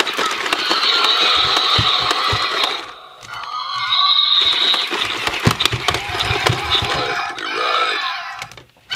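Electronic dinosaur roars and screeches from a talking toy's speaker, in long rasping stretches with a short break about three seconds in. Plastic toy dinosaurs knock and scrape against each other.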